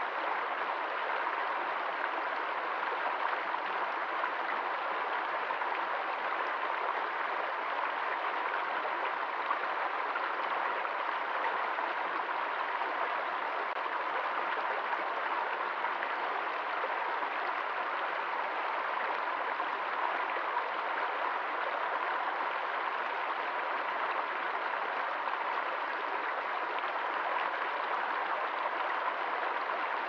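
Shallow rocky stream flowing and rippling over stones, a steady, even rush of water.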